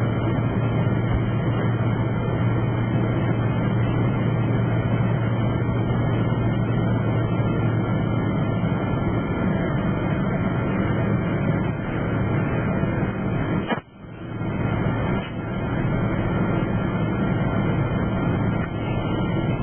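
Steady drone of an airliner's engines and airflow heard from inside the passenger cabin, strongest in a low hum. It cuts out abruptly for a moment about fourteen seconds in and then comes back at the same level.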